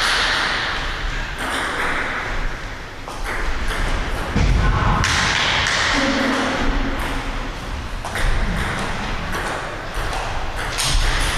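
Table tennis rally: a celluloid ball clicks back and forth off the rubber paddles and bounces on the table again and again.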